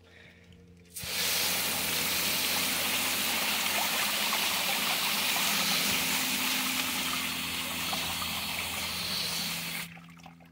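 Garden-hose spray nozzle jetting water onto crushed gem ore in a round wire-mesh sifting screen: a steady, loud hissing spray that starts about a second in and cuts off near the end, as the ore is rinsed clean.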